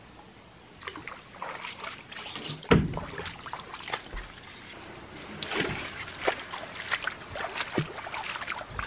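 A paddleboard being handled off a pontoon boat and carried to the water's edge: a heavy thump of the board about three seconds in, then scattered knocks and scrapes. Bare feet step and splash in shallow water near the end.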